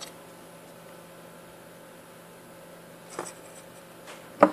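A few short clicks and knocks from a perfboard being handled in a metal helping-hands clamp: a light one about three seconds in and a sharper one at the very end, over a faint steady hum.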